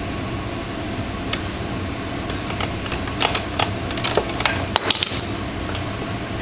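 Metal clicks and clinks of a wrench being worked against the rear sprocket bolts while trying to free it where it is stuck: scattered taps, then a quick cluster of sharper clinks, one ringing briefly, in the middle seconds. An air conditioning unit runs steadily underneath.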